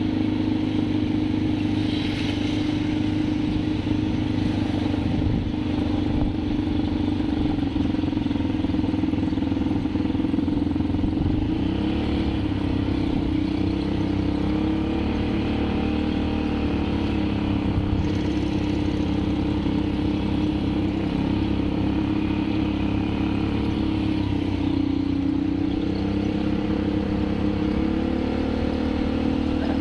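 ATV (quad bike) engine running steadily as it rides along a dirt trail, its pitch shifting up and down with the throttle, with a dip and rise a few seconds before the end.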